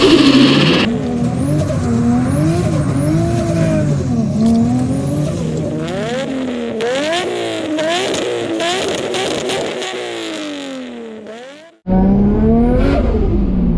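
Built Nissan RB25DET turbocharged straight-six revving hard again and again, its pitch climbing and dropping, with the choppy chatter of turbo flutter as the throttle snaps shut. The sound fades out about 12 seconds in and cuts straight to another rising rev.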